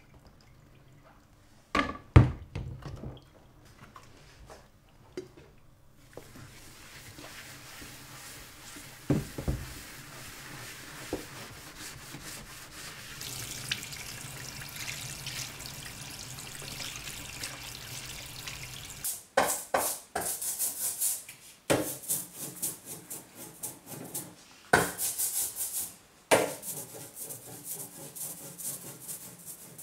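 A copper printing plate being scrubbed with a white paste and wet down in a tray, with water sounds and a few knocks against the tray. In the last third a series of short, loud rubbing strokes comes in.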